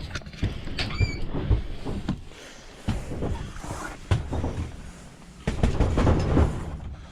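Irregular knocking and scraping of wood, with a short high squeak about a second in. This is typical of pallet boards and nails being worked loose.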